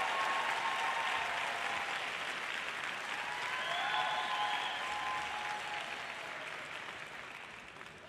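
Arena audience applauding at the end of a figure skating program, the clapping dying down over the last couple of seconds.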